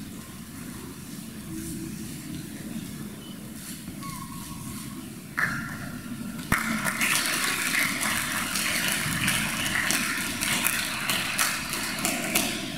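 Audience clapping, starting suddenly about six seconds in and going on steadily, over the low murmur of a school hall.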